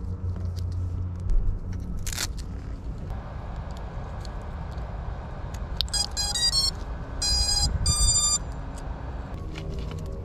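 FPV racing quadcopter's motors sounding their electronic startup beeps as the battery is connected: a quick run of short beeps at changing pitches about six seconds in, then two longer beeps. Before them, a knock from handling the drone over a low steady rumble.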